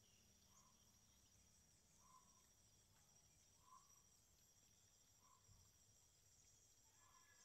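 Faint, steady high-pitched chirring of insects, with a soft short note repeating about every second and a half.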